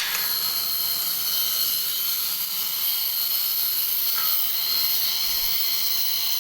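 Electric arc welding: the steady, high-pitched frying hiss of a stick-welding arc as the electrode burns.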